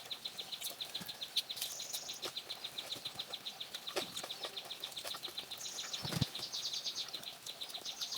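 Outdoor rural ambience: a steady, rapid, high-pitched chirping of about eight pulses a second, with brief higher buzzing trills now and then and a dull thump about six seconds in.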